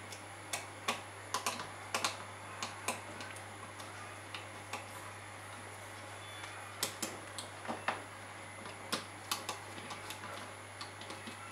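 Irregular small clicks and taps of a screwdriver working the screw terminals of a TPA3116D2 amplifier board while speaker wires are swapped, with a quieter stretch in the middle. A steady low hum runs underneath.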